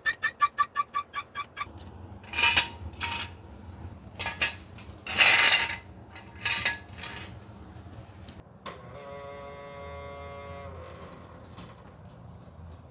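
A quick run of repeated musical notes that stops after about a second and a half, then several sharp metallic clanks and clinks, and a steady whine lasting about two seconds.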